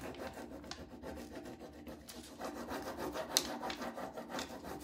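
A small applicator rubbing a rub-on decor transfer onto a painted wooden bench panel: a continuous scratchy rubbing of many short strokes, with one sharp tick partway through.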